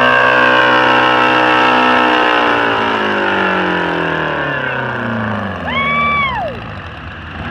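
1950 Oliver tractor's Detroit Diesel 4-53 two-stroke engine running hard while pulling a weight-transfer sled. Its pitch falls steadily from about two seconds in as the revs drop. A short whistle-like tone rises and falls near the end.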